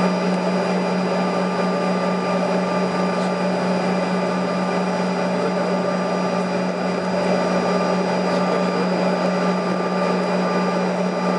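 Steady jet airliner engine and cabin noise heard from inside the passenger cabin: a constant low drone with thin high whining tones over a rushing hiss, holding level throughout.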